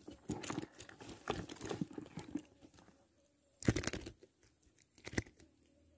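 Close rustling, scraping and clicking of hands handling a freshly caught climbing perch near the microphone, with a loud crackling burst a little past halfway and a shorter one near the end.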